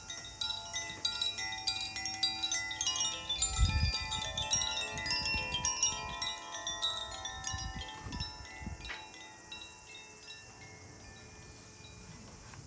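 Makino-style sound-healing chimes struck in a dense cascade of many ringing tones for about nine seconds, then left to ring out and fade. There are a few low thumps, the strongest about four seconds in.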